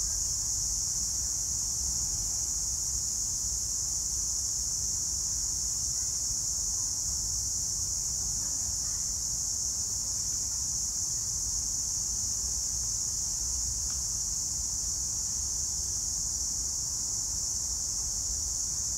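A steady, high-pitched insect chorus buzzing without a break, over a low rumble.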